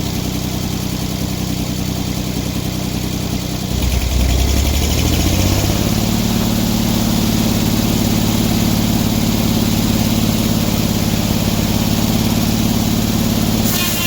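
Engine idling steadily, then throttled up over about two seconds, and running at a steady higher speed until the sound cuts off near the end.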